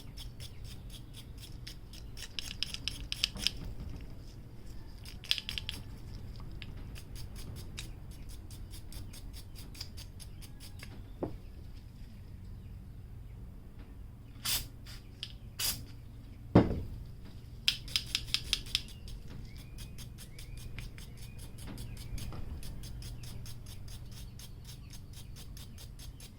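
Small steel wire brush scrubbing a metal lawn mower carburetor in short bursts of rapid strokes. There is a sharp knock about two-thirds of the way through.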